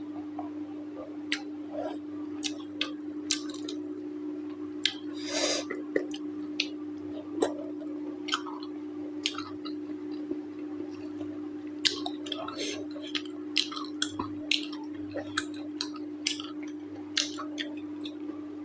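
Close-miked mouth sounds of someone eating mutton curry with rice: irregular wet smacks and sharp chewing clicks, several a second at times, over a steady low hum.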